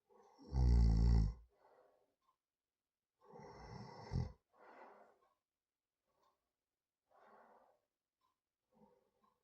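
A person snoring in their sleep: two loud, low snores, the first about half a second in with a falling pitch, the second about three seconds in and ending in a sharp rasp. Softer breaths follow.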